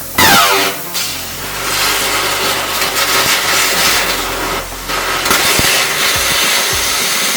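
High-power laser cutting machine at work: a loud rushing hiss of the cut, starting suddenly with a short falling whine and dipping briefly about a second in and again near five seconds.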